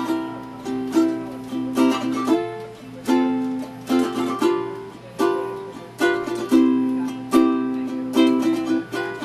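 Ukulele strummed in a steady rhythm, a strong strum about every 0.6 to 0.8 seconds with lighter strums between, the chords changing every few strums.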